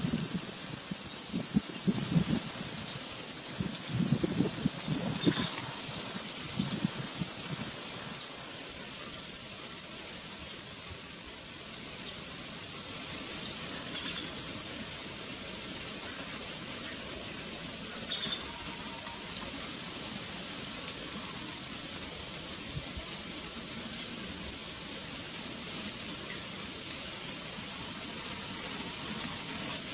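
Insect chorus making a steady, high-pitched drone that runs unbroken, with a few faint low thuds in the first several seconds.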